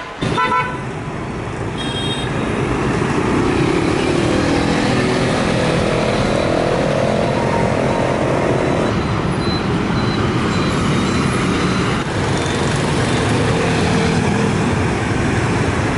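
Busy city street traffic, mostly motorbikes and cars, running steadily and loud. An engine's pitch climbs as it revs up about five seconds in, and there is a short high beep about two seconds in.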